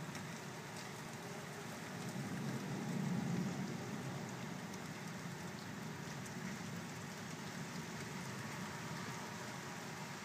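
Steady rain falling during a thunderstorm, a continuous hiss with faint scattered drop ticks, swelling briefly about three seconds in.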